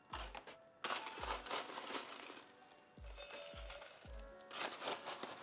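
Crushed ice rattling and clinking into a wine glass as the glass is filled to chill it, over background music.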